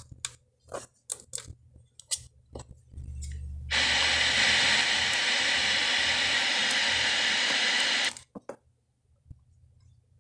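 Buttons on a GoTo M300 car stereo's faceplate clicking as they are pressed, then, about four seconds in, a steady hiss of FM radio static from the unit that cuts off suddenly about four seconds later, followed by a few more clicks.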